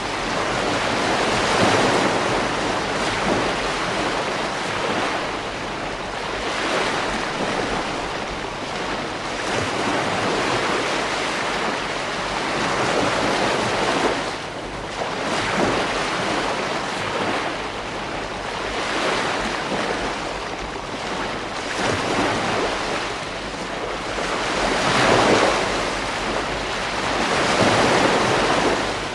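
Ocean waves breaking on a beach: a continuous rush of surf that swells and eases every few seconds, with a few larger breakers standing out, and some wind noise on the microphone.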